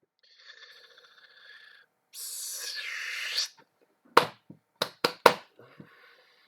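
A person's breathing, with a loud drawn-out breath about two seconds in, then a quick run of about five short, sharp coughs.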